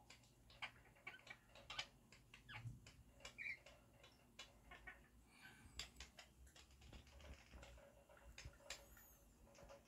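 Lineolated parakeet eating from its food dish: irregular small clicks of its beak cracking seed and tapping the bowl.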